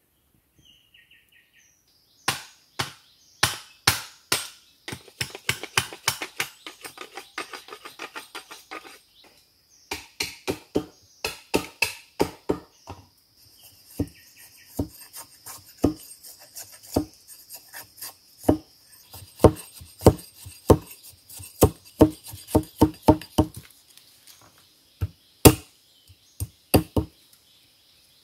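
Bamboo being chopped and split with a hatchet or knife: a long series of sharp wooden strikes, a quick run of light strokes a few seconds in, then slower, heavier single blows, the loudest near the end.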